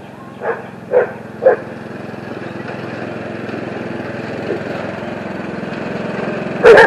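Husqvarna riding lawn mower engine running as the mower drives closer, growing louder, while a dog barks at it: three short barks about half a second apart near the start, then a louder bark near the end.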